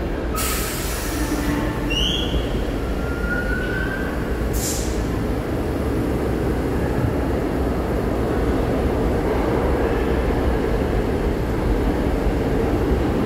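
An R46 subway train slows to a stop at the platform. There are brief high squeals and short hisses in the first few seconds, then a steady rumble while it stands.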